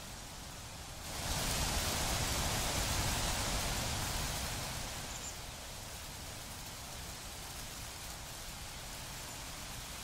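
A rushing hiss over a low rumble swells about a second in and eases off after a few seconds, then stays as a steadier, softer hiss.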